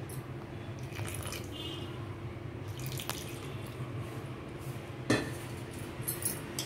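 A hand mixing and squeezing flour with water in a stainless steel bowl: soft rustling and squishing, with a couple of light clinks against the steel, over a steady low hum.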